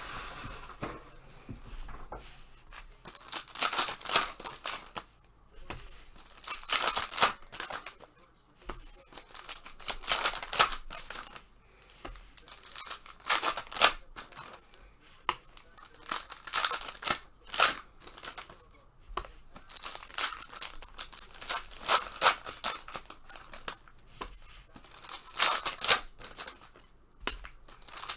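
Wrapping on trading card packs and boxes being torn open and crinkled by hand, in repeated bursts a few seconds apart.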